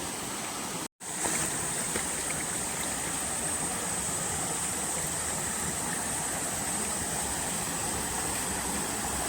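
Steady rush of a waterfall's falling water, cut off by a split-second of dead silence about a second in.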